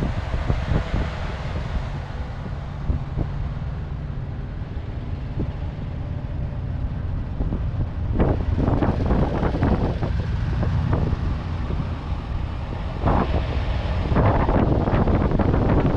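Low, steady vehicle engine rumble with wind buffeting the microphone. The buffeting surges louder about halfway through and again near the end.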